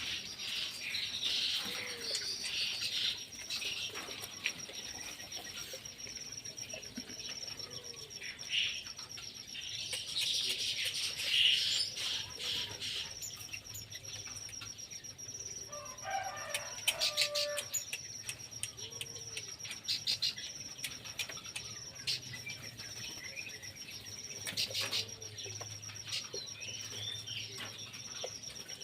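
Aviary birds chirping and calling in short scattered phrases, with bursts of wing flapping and clicking. A steady high-pitched whine runs underneath.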